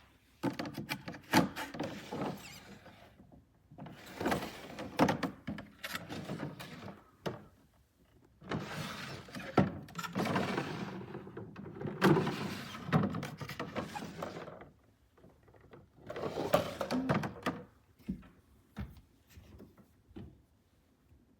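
Clear plastic stackable storage drawers being handled, with scraping and knocks in a string of short bursts a few seconds apart and sharp clicks among them.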